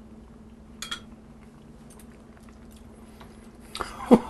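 A faint steady hum with a few small clicks, then near the end a silicone spatula starts stirring thick beef stroganoff sauce in a skillet, making a quick run of short squelches that each drop in pitch.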